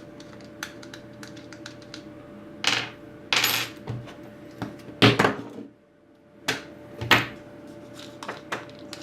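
Small hard plastic and metal parts of a rotary tool clicking and clattering as they are handled and taken apart, with a series of light clicks and a few louder knocks, the loudest about five seconds in.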